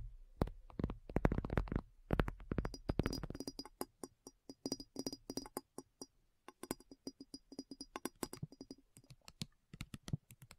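A rapid series of sharp clicks and taps, loudest in the first two seconds, then lighter and more evenly spaced, with a faint steady tone behind them in the middle.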